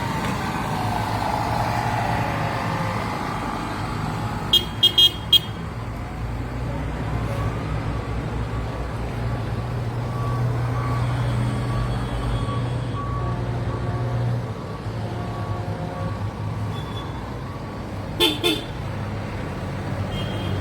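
Tractor engines running with a steady low rumble, and a vehicle horn tooting four quick blasts about four and a half seconds in and twice more near the end.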